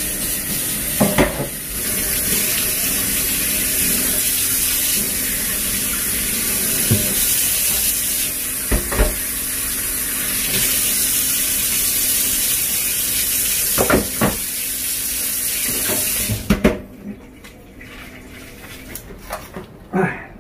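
Kitchen tap running into a stainless steel sink as a plastic cutting board is washed, with a few knocks and clatters of the board and dishes. The running water cuts off suddenly about three-quarters of the way through, leaving a quieter stretch with a few light clicks.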